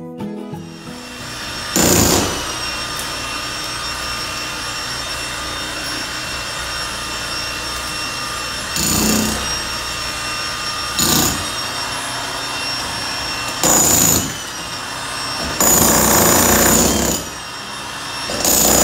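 Electric demolition hammer breaking up a tiled floor in about six short bursts of one to two seconds each, the longest near the end, with a steady hum and thin whine between bursts.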